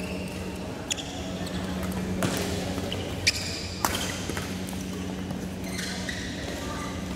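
Badminton rackets striking a shuttlecock in a rally: four sharp hits within about three seconds, the last two close together. Shoes squeak on the court floor near the end, over a steady low hum.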